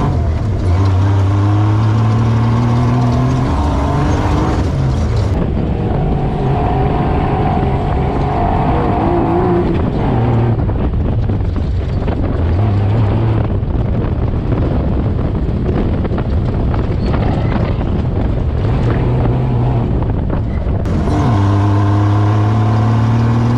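Race vehicle engine running hard and revving, its pitch climbing as it accelerates. From about five seconds in the sound turns duller and rougher, then the clear climbing revs return near the end.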